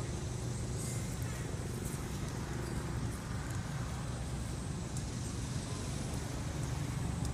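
Steady low rumble of a running engine with an even outdoor hiss over it, and a few faint light clicks.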